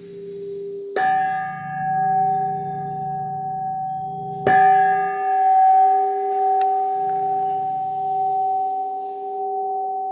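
Tuned metal chime, such as a healing tuned pipe, struck twice: about a second in and again about three and a half seconds later. Each strike rings out in a long clear tone with many higher overtones, over a steady lower tone that sounds underneath throughout.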